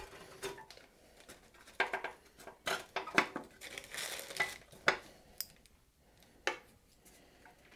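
Light metallic clinks and knocks at irregular intervals, from the sheet-metal fan shroud and starter of a small Briggs & Stratton lawnmower engine being handled and fitted into place.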